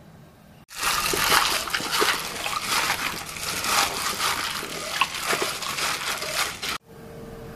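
Plastic-gloved hand squishing and tossing raw chicken drumsticks in a wet marinade in a stainless steel bowl: loud wet squelching and glove crinkle with a few sharper knocks. It starts suddenly about a second in and cuts off abruptly near the end.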